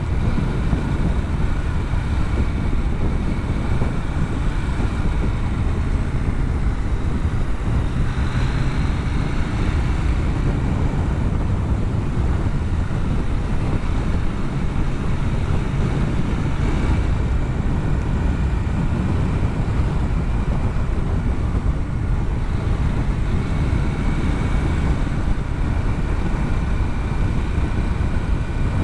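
Motorcycle engine running at road speed under heavy wind noise on the microphone, its note shifting a few times with the throttle.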